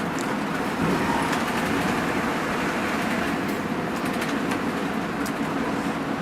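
Hino RN285 bus's diesel engine running steadily, heard as even engine noise and hiss with a few faint high ticks.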